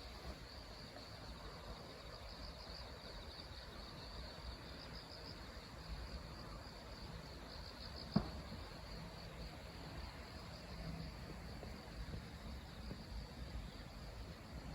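Insects trilling steadily in a high, faintly pulsing chorus, with one short knock about eight seconds in.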